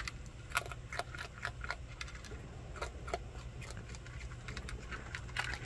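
A raccoon eating dry pet kibble from a plastic bowl: irregular crunching and clicking, several small clicks a second.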